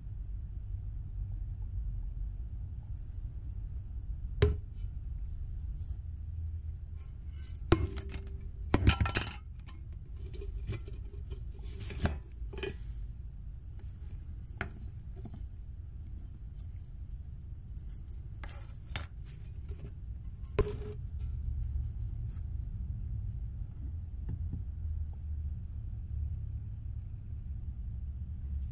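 Parts of a rusty old thermos being handled and set down on a workbench: a few sharp metal and glass clinks and knocks, the loudest cluster about eight to nine seconds in, over a steady low hum.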